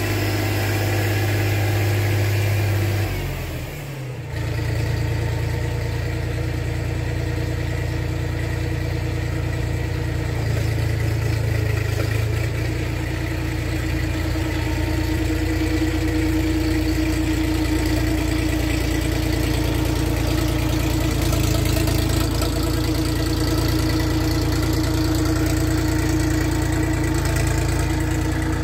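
Compact tractor engine running steadily, with a brief drop in loudness about three seconds in; the tractor, fitted with a front-end loader, drives up near the end.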